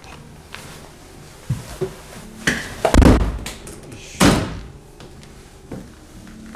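A door banging: a run of knocks and slams, the loudest about three seconds in and another heavy bang about a second after.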